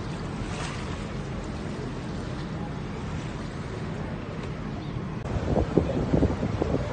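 Steady wind and water noise with a low rumble, heard aboard a lake boat. About five seconds in, heavier wind begins buffeting the microphone.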